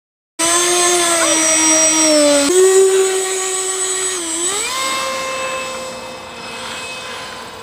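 Radio-controlled model airplane's motor running with a steady whine that starts abruptly, steps up in pitch about two and a half seconds in, dips and rises again a couple of seconds later, then holds steady while slowly getting quieter as the plane flies off.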